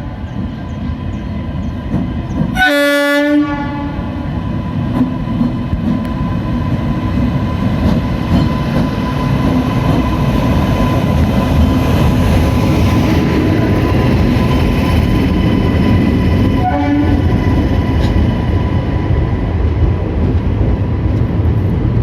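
WAP7 electric locomotive sounding its horn in one short blast about three seconds in and a shorter one near seventeen seconds. Under the horn is the steady rumble of the train running on the rails, which grows louder over the first several seconds.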